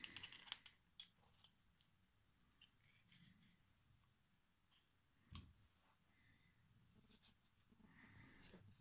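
Faint clicks and light taps of small metal differential parts (gears, pins, case) being handled and set down on a paper towel: a quick cluster of clicks at the start, then a few single clicks spread through, and a soft rustle near the end.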